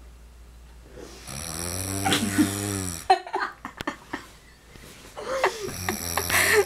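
A man snoring in his sleep: one long snore starting about a second in and breaking off sharply with a few clicks, then a second snore building near the end.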